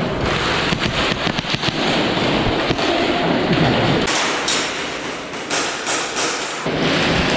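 Airsoft guns firing in rapid strings of snapping shots, in clusters, with the loudest strings about halfway through, over a steady rushing noise.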